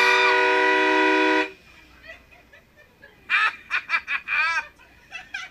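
Train air horn blasting a loud, steady multi-note chord that cuts off abruptly about a second and a half in. A few seconds later come several short, high-pitched cries from the people it has startled.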